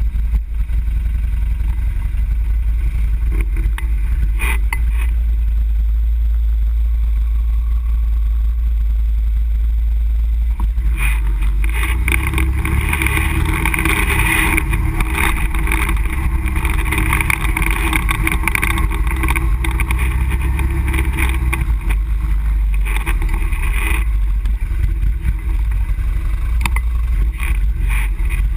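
Off-road vehicle engine running steadily while driving along a dirt trail, with a constant low rumble. The engine and road noise grow louder about eleven seconds in as the vehicle picks up speed.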